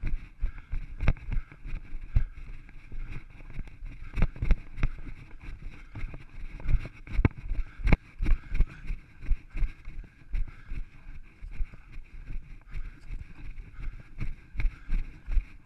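Wind rumble and buffeting on a runner's body-mounted action camera, with irregular knocks and thuds of running footfalls on rock several times a second, over a steady hiss.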